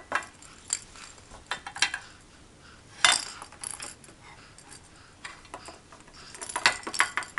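Irregular light clanks and taps of a metal muffin pan on a plastic high-chair tray as a baby handles it and knocks a plastic toy ball against it, with one louder knock about three seconds in and a quick run of taps near the end.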